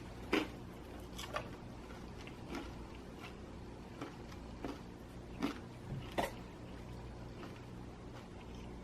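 Close-up chewing of crispy pizza, with a few short crunches spaced unevenly over the first six seconds.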